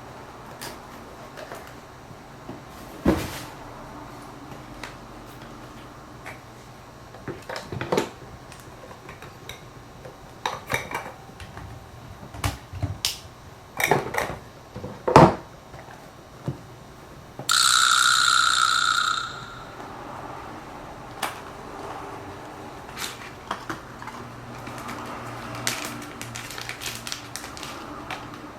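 Camera gear and its packaging being handled: scattered clicks, taps and knocks, with a steady high-pitched tone lasting about two seconds around two-thirds of the way through.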